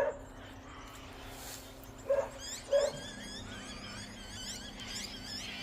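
A dog giving two short barks about two seconds in, over faint high chirping.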